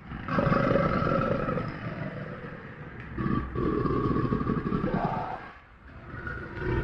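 A large animal's deep, drawn-out calls: two long ones of about two seconds each, then a third beginning near the end that cuts off abruptly.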